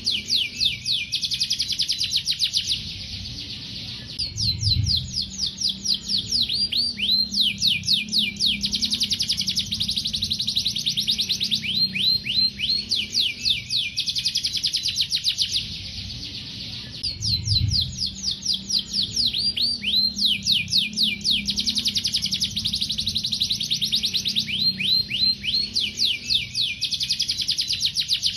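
Domestic canary singing long, fast song phrases of rapid repeated sweeping notes and trills, pausing briefly about four seconds in, around sixteen seconds in and near the end.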